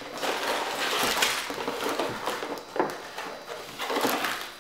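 A cardboard box being opened and its sealed plastic bags of Lego bricks taken out: crinkling plastic and rattling bricks, with a few light knocks on the table.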